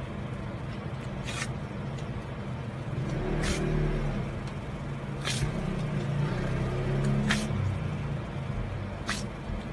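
A steady low mechanical hum that swells twice, with a short hissing swish about every two seconds.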